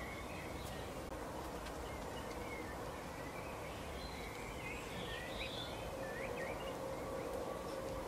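Small songbirds chirping and twittering faintly, the calls busiest about halfway through, over a steady outdoor background hiss with a faint hum.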